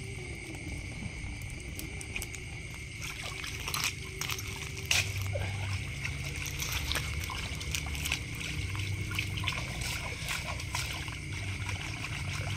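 Water splashing and sloshing as a plastic basketful of small fish is dipped and swished in the water to rinse them, the splashes starting about three seconds in.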